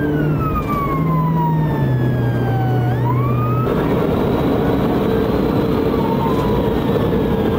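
Police cruiser siren wailing in slow sweeps, pitch falling for about three seconds and then climbing again, over steady road and engine noise from a car at highway speed. The siren drops back and road noise rises about two-thirds of the way through.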